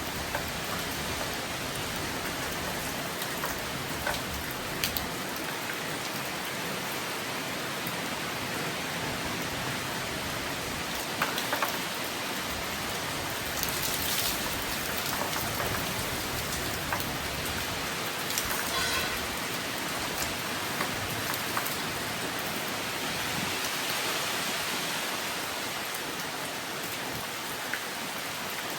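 Steady rain falling, with scattered sharper taps of individual drops striking near the microphone.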